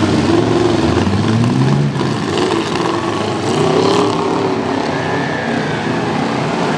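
Several demolition derby pickup truck engines revving, their pitch rising and falling unevenly as the trucks manoeuvre.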